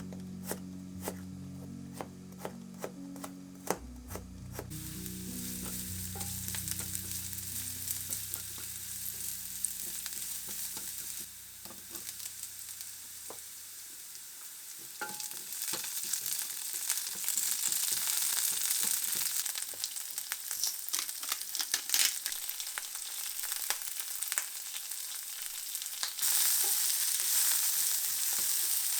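Food sizzling in a frying pan, with clicks of a utensil stirring it; the sizzle grows louder near the end. Quiet background music plays under the first half.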